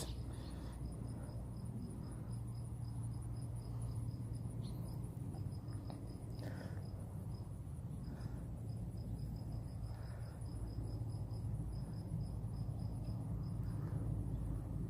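Crickets chirping in a steady train of fast, high-pitched pulses, over a low steady rumble.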